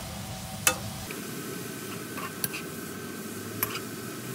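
Metal spoon stirring and tossing bracken fern in a nonstick wok, knocking against the pan in a few sharp clicks, the loudest just under a second in, over a steady low sizzle of stir-frying.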